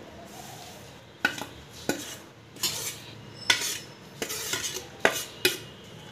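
A spoon scraping and clinking against a plate as a crumbly roasted flour mixture is pushed off it into a pan of sugar syrup: a string of sharp clinks and short scrapes, roughly one every half second to second.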